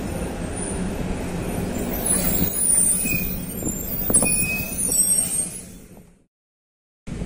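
Mascarello Granmetro city bus on a VW 26.330 OTA chassis with a Cummins ISL diesel, engine running as it pulls in, with air-brake hissing and short high brake squeals. The sound fades out about six seconds in.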